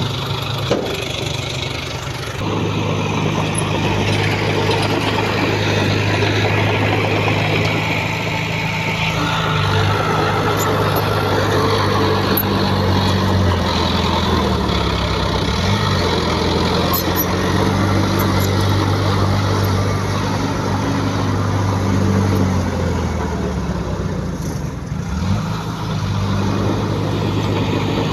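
Diesel engine of heavy earthmoving equipment running steadily, getting louder about two seconds in and shifting pitch several times as it works.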